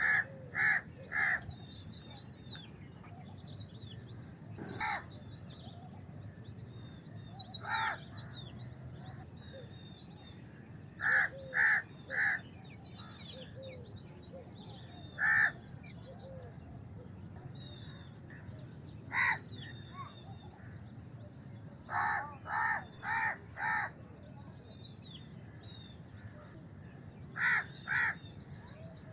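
House crows cawing: short harsh caws, some single and some in quick runs of two to four, over a steady chatter of small birds chirping.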